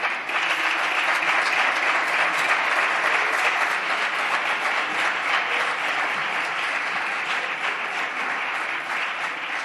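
Applause from a group of deputies on their benches, many hands clapping steadily and slowly dying down toward the end.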